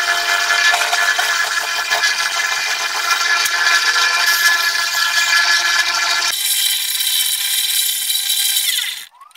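Bandsaw running and ripping a long strip of wood, a steady whine with many held tones over the cutting noise. The sound changes abruptly about six seconds in and stops suddenly near the end.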